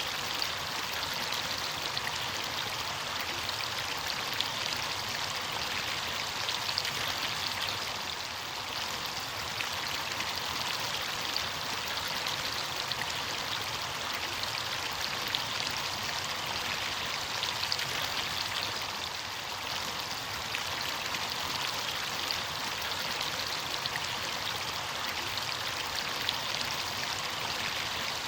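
Running water of a stream or small cascade: a steady, hissing rush with many small splashes and drips on top.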